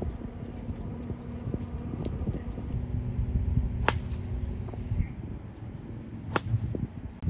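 Two golf tee shots: a club head striking the ball off the tee twice, each a single sharp strike, about two and a half seconds apart, over a low outdoor hum of wind and crowd.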